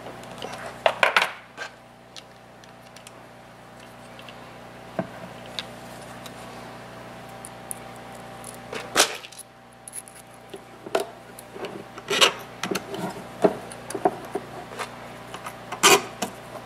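Small metal hardware (screws, nuts and springs) clicking and clinking against a plastic extruder body and the bench as it is handled and fitted by hand: scattered sharp clicks, a quick cluster about a second in and many more in the last few seconds, over a steady background hum.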